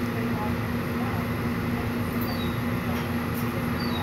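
Steady low hum with a constant noise bed, and a few faint, short, high chirps from a bird about two and three seconds in.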